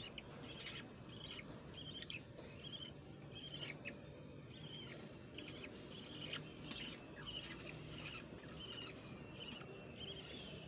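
Budgerigar chicks cheeping: short, high squeaky calls repeated about twice a second.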